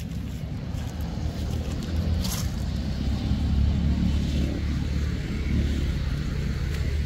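Low engine rumble of a passing motor vehicle, swelling about two seconds in and easing slightly near the end, with a brief rustle about two seconds in.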